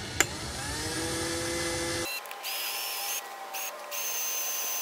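Electric drill boring into a seized bolt in an outboard motor's bracket: a sharp click, then the motor spins up with a rising whine that levels off and runs on as a steady high whine, broken twice briefly near the middle.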